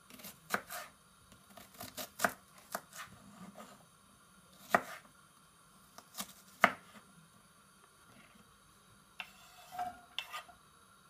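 Kitchen knife chopping an onion on a wooden cutting board: irregular sharp knocks of the blade on the board. Near the end, a short scraping as the diced onion is pushed off the board into the frying pan.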